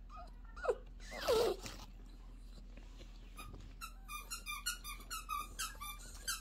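Toy poodle whining: two short falling whines about a second in, the second louder, as he begs for food. Near the end comes a quick run of soft crackly ticks, several a second.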